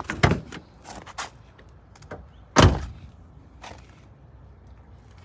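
A pickup truck's door swung shut with a single heavy slam about two and a half seconds in, after a lighter knock and some handling noise near the start.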